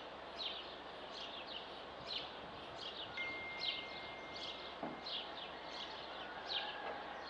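Bird chirping: a run of short falling notes, about two a second, over a steady outdoor hiss.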